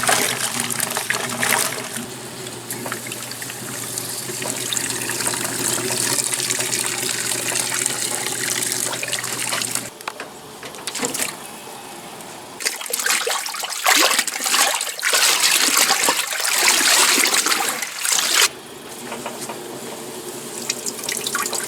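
Water sloshing and splashing in the tub of an old Maytag wringer washing machine, with its replacement electric motor humming steadily through the first half. The hum stops about halfway through, and later comes a louder stretch of gushing, splashing water lasting about five seconds.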